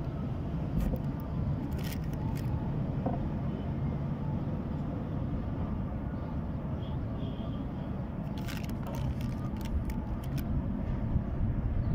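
Steady low rumble of background noise, with a few short sharp clicks scattered through it.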